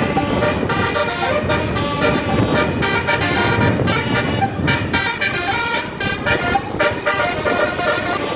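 Bus 'telolet basuri' musical horn, a set of trumpet air horns, playing a tune as a run of short and held notes that step from pitch to pitch, over a low rumble.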